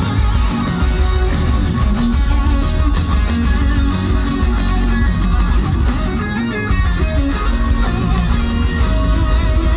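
Live band music played loudly through concert speakers, with electric guitar and heavy bass.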